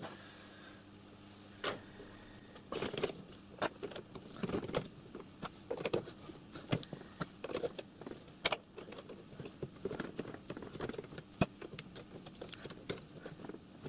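Copper plumbing pipes and elbow fittings being handled and pushed together, giving light, irregular metallic clinks and taps.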